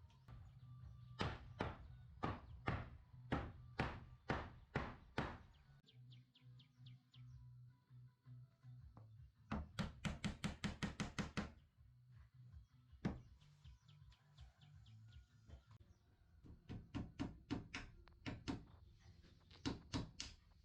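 Repeated hammer blows on wood in runs: a steady series of about two strikes a second, then a rapid flurry of light, fast blows near the middle, a single strike, and another series near the end, over a low steady hum.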